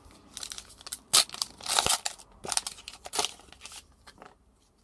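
Foil trading-card booster pack wrapper being torn open and crinkled by hand: a run of crackles and crinkles, loudest between one and two seconds in, dying away near the end.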